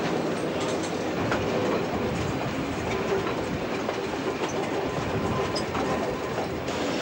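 Brill Model 75 railcar running along the track, heard from on board: a steady rumble of the railcar and its wheels on the rails.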